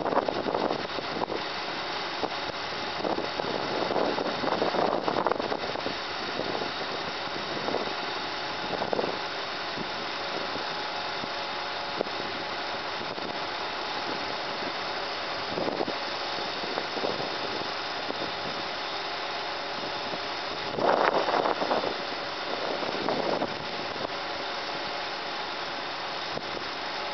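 1993 GMC TopKick truck engine running steadily, driving the bucket boom's hydraulics as the boom lowers, with a faint steady whine over it. A few brief louder rushes break in, the loudest about 21 seconds in.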